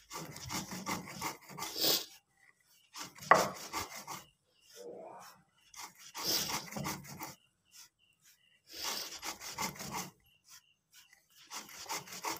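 Stone muller scraped back and forth on a shil grinding slab, crushing dry-roasted whole spices into powder. The gritty strokes come in about six quick bouts with short pauses between them.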